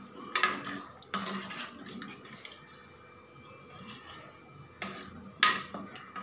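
Steel ladle stirring a thick curry in a clay pot, scraping and knocking against the pot's sides in several sharp strokes, two near the start and the loudest near the end.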